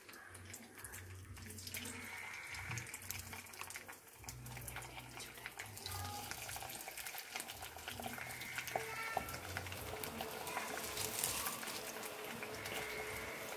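Boiled potato strips dropped by hand into hot oil in a wok, sizzling and crackling as they fry, the sizzle growing louder as more go in.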